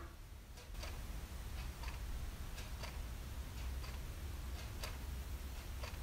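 Wall clock ticking, a tick and a tock about a fifth of a second apart, repeating about once a second, over a low steady rumble.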